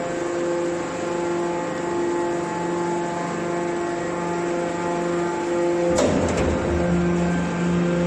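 Hydraulic metal baler's power unit running with a steady multi-tone hum. About six seconds in comes one sharp metal clank, followed by a brief clatter and a low rumble.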